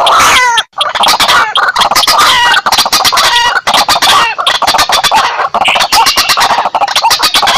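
Bird-trapping lure recording of rail calls, white-breasted waterhen (ruak-ruak) mixed with sintar ladang: a loud, dense run of rapid clucking notes repeated many times a second, broken by a short gap under a second in.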